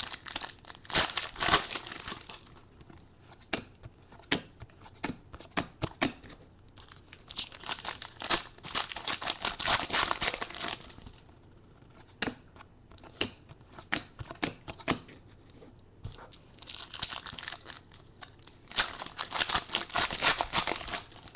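Foil trading-card pack wrappers being torn open and crinkled by hand, in three long bursts, with scattered light clicks and taps from cards being handled in between.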